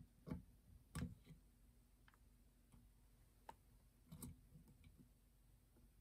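Near silence with a few faint clicks and taps, the loudest about a third of a second in, about a second in and around four seconds in: multimeter test probes being handled and set against a doorbell transformer's metal screw terminals. A faint steady low hum lies underneath.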